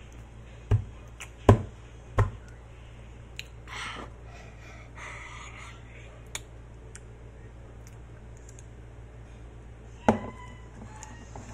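An opened cardboard Pringles can being handled: three quick thumps in the first two and a half seconds and another near the end, with softer brief noises in between.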